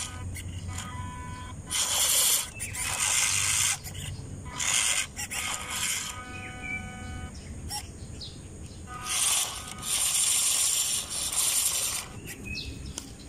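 Small RC crawler truck's electric motor and gearbox whirring in short throttle bursts as it creeps over a dirt clump, with a longer stretch of running about three-quarters of the way through.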